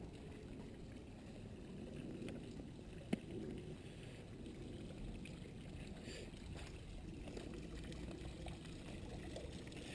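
Faint, steady low rumbling noise with a single sharp click about three seconds in.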